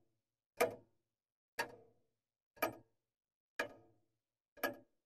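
Mechanical clock ticking steadily, one sharp tick each second, five ticks in all.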